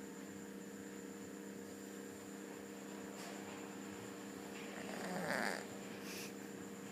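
A sleeping cat snoring: one snore swells up about five seconds in and fades quickly, over a steady low hum.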